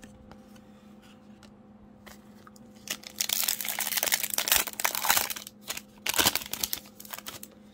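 Foil wrapper of a Panini Donruss basketball card pack crinkling and tearing as it is ripped open, starting about three seconds in, followed by another shorter bout of wrapper crinkling about a second later.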